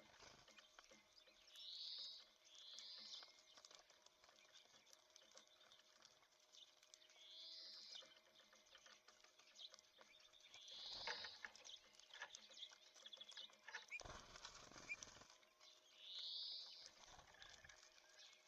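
Small songbirds at a seed feeder giving short, high calls, about five spread out, over faint ticking. A brief rush of noise comes about fourteen seconds in.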